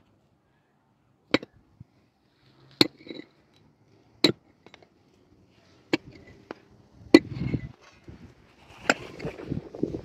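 Pickaxe striking stony earth in a steady rhythm, six sharp blows about a second and a half apart, with loose soil and stones scraping and rustling between the later blows.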